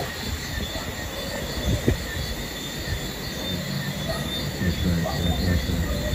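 Night ambience: steady high-pitched insect chirring over a continuous low rumble.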